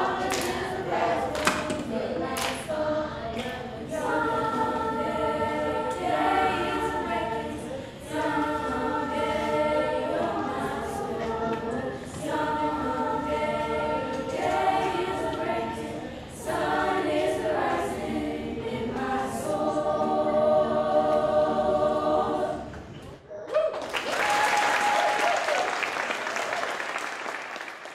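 Middle school choir singing a cappella in harmony, with hand claps keeping time for the first few seconds. The song ends about 23 seconds in and the audience breaks into applause.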